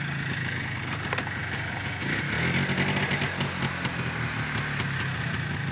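A motor running steadily with a low hum whose pitch pattern shifts about two seconds in, with a few light clicks.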